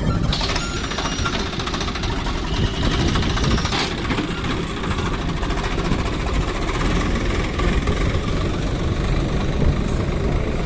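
Heavy diesel engine running steadily with a rough, knocking note, typical of a working backhoe loader or farm tractor.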